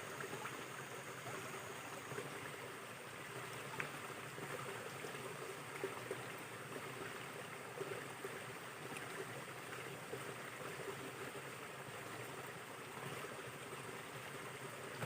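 A small river flowing: a faint, steady rush of water, with a few small ticks.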